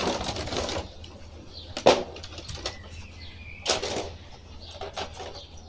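Clear plastic blister tray of an action-figure pack rustling and crackling as it is handled, with two sharp crinkles, about two and four seconds in.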